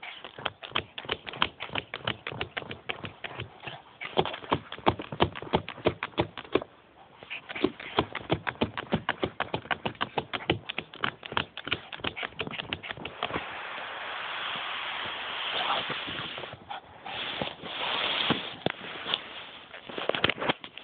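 Shih tzu puppy working at a plastic box with fast, even clicking taps, about five a second, then a few seconds of scratchy rustling and some scattered taps near the end.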